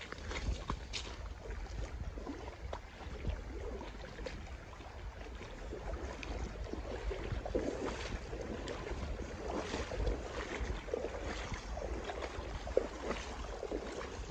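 Shallow stream water running over a gravel riffle, with wind buffeting the microphone as a steady low rumble.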